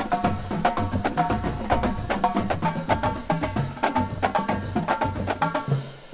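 Marching drumline playing a fast cadence: rapid snare and tenor drum strokes over tuned bass drums.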